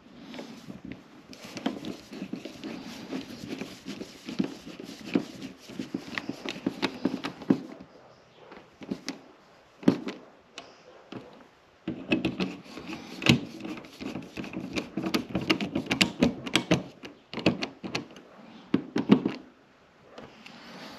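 Irregular clicks, taps and scraping of hand work on an electrical wall box, as a device is screwed into place and adjusted. There are two busy stretches of handling with a few single knocks between them.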